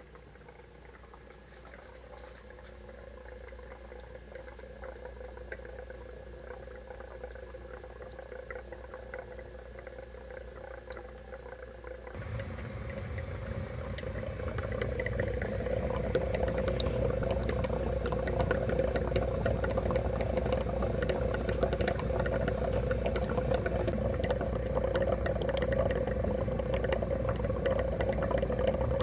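Brine shrimp hatchery's 2-watt mini air pump humming at full power, with air bubbling hard up through the salt water in a soda bottle to keep the eggs suspended. The bubbling gets much louder about twelve seconds in and stays loud until it cuts off.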